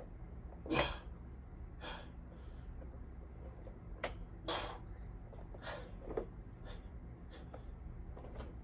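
A man's sharp, forceful breaths, about eight short puffs roughly a second apart, one with each push of a set of dumbbell presses; the first is the loudest.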